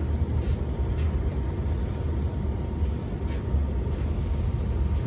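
Steady low rumble of wind buffeting the microphone, with a few faint clicks or rustles.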